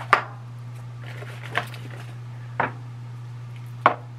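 Four short knocks of containers being handled and set down on a workbench, the first the loudest, over a steady low hum.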